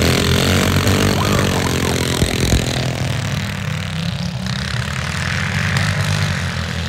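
Engine of a racing walk-behind rice tractor running at idle, a steady low drone through an upright exhaust pipe, uneven in the first half with a couple of knocks about two and a half seconds in.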